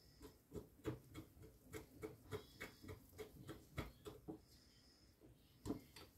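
Wire whisk beating thin crêpe batter in a glass bowl: a run of quick light taps of the wires against the glass, about three a second, stopping after about four seconds, then one more tap near the end.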